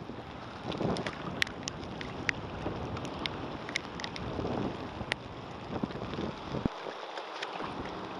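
Wind buffeting the microphone in gusts over a wash of rain and water, with scattered sharp ticks of raindrops. The low wind rumble drops out for about a second near the end.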